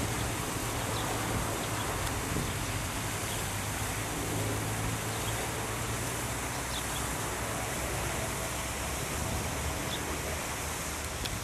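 Steady rushing of a tall jet fountain's water falling back into its pond, with some low wind rumble on the microphone in the first few seconds.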